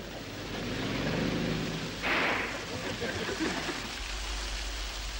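Steady rain falling, with a brief louder hiss about two seconds in.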